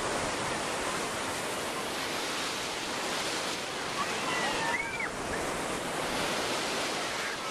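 Gentle surf washing up the sand and running back at the shoreline: a steady rush of water.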